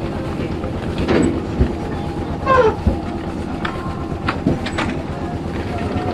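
Farm machinery engine running at low speed with an even, rapid pulsing, over rhythmic mechanical clattering with a few sharp clicks and a brief squeak about two and a half seconds in.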